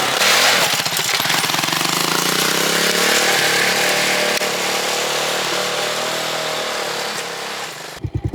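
Manual ATV engine running under way, its note rising a little and easing off under a loud rushing noise. Near the end the sound changes abruptly to a deeper, stronger engine note.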